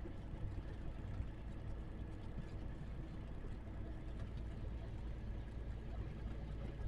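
Trailer truck's engine running with a steady low drone.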